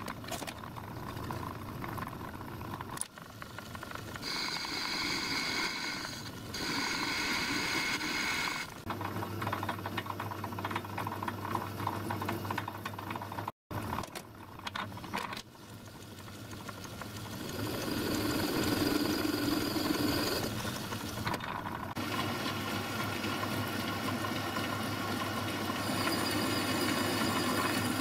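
Metal-turning lathe running, its cutting tool taking cuts on a steel workpiece. The sound changes several times as cuts go on and off, with a brief dropout about halfway.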